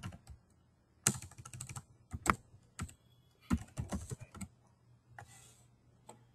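Computer keyboard typing in several short bursts of keystrokes with pauses between, as a file name is typed in.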